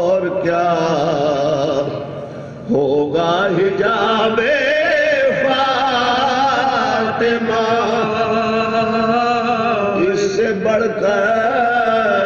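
Soz-khwani: a man chanting an Urdu elegiac poem (salam) in slow, unaccompanied melody, holding long notes with a wavering ornament. A phrase fades out about two seconds in, and a new phrase begins sharply just before the three-second mark.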